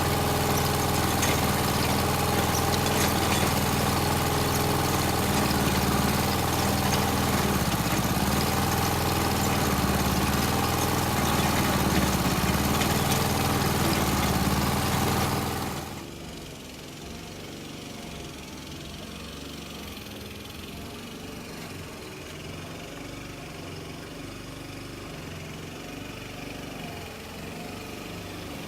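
Engine of a digging machine running steadily. About sixteen seconds in, the sound drops suddenly to a much quieter, steady engine hum.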